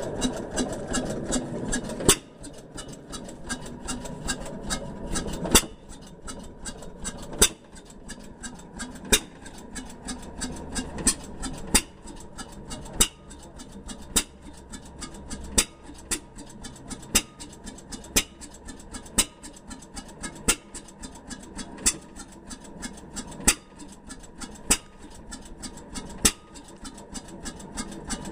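Fairbanks hit-and-miss engine running: a sharp firing bang every one to two seconds, with mechanical clatter as it coasts between firings. The running is busier for the first five seconds or so before the firings settle into a spaced rhythm.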